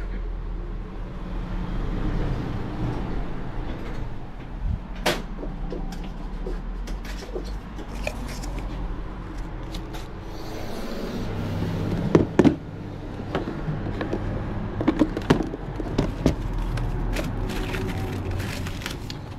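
Counter handling sounds: a plastic lid pressed onto a paper coffee cup and the clip latches of a plastic food tub snapped open, heard as scattered clicks and knocks, the loudest about twelve seconds in, over a steady low hum.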